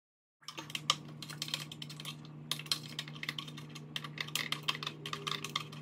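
Rapid, irregular light clicking of a tool and fingers working the screw of the air-intake hose clamp in the engine bay, over a steady low hum.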